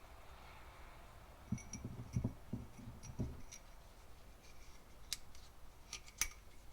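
Light handling noises from oil-filter housing parts and an oil jug: a cluster of soft knocks about two seconds in, then a few sharp small clicks near the end.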